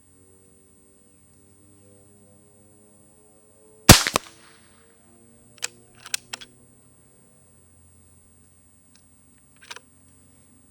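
A .22 PCP air rifle, the Beeman QB Chief, fires once with a sharp crack about four seconds in. A few short, quieter clicks follow over the next two and a half seconds, and one more comes near the end.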